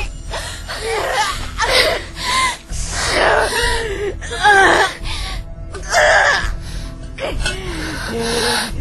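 A woman's voice makes wordless gasps and moans in short bursts, rising and falling in pitch, over dramatic background music.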